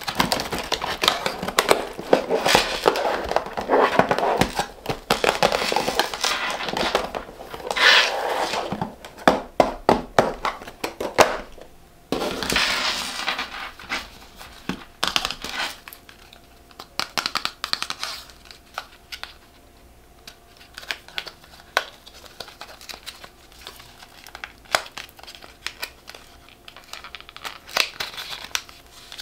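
Wrapping paper crinkling and rustling as it is pulled out of a small cardboard box. About halfway through it gives way to quieter scattered clicks and taps of a small makeup compact being handled.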